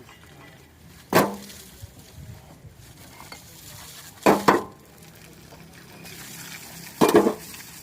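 Three loud scraping knocks of a metal tool on a hard surface, about three seconds apart, the middle one a quick double stroke.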